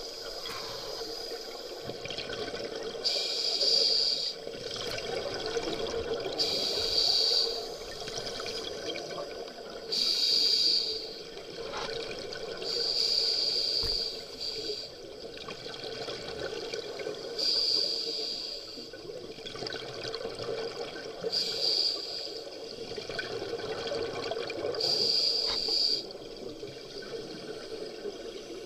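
Scuba divers' regulator breathing heard underwater: a burst of exhaled bubbles gurgling about every three to four seconds, over a steady dull hum of the water.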